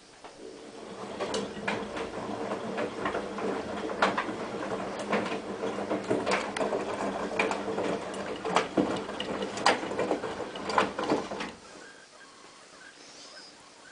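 Hotpoint-Ariston AVXXF137 washer-dryer running its drum: a steady motor hum with irregular clicks and knocks from the turning drum and its load. The hum stops about twelve seconds in, as the drum pauses between turns.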